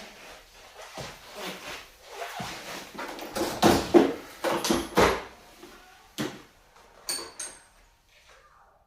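Rummaging through a ratchet and socket set: metal tools and case clattering and knocking, loudest in a burst of handling a few seconds in, then a few separate clinks, one with a short metallic ring.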